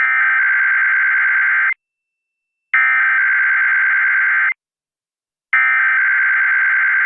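Emergency Alert System SAME header: three identical bursts of warbling digital data tones, each about two seconds long with a pause of about a second between them. These bursts carry the coded alert, here the start of a required weekly test.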